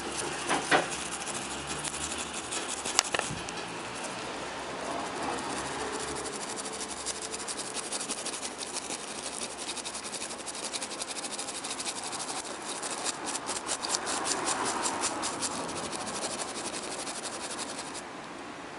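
Light handling noise from a small circuit board and its connector being moved on a workbench: two sharp clicks early, then a run of rapid scratchy ticks for about three seconds, over a steady hiss.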